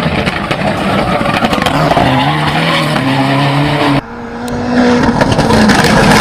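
Race car engine sound effect: engine running hard, its pitch holding and then stepping up and down, with skidding tyres. It breaks off sharply about four seconds in and swells back louder toward the end.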